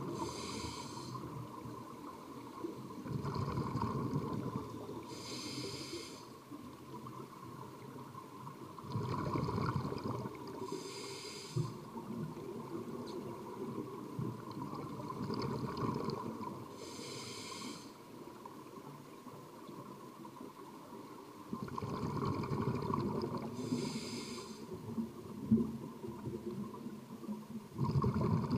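Scuba breathing through a regulator, heard underwater: a short hiss on each inhale and a bubbling rumble of exhaust bubbles on each exhale, about one breath every six seconds.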